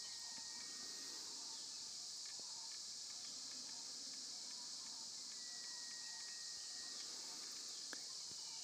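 Steady insect chorus, an even high-pitched hiss, with a faint long high note twice.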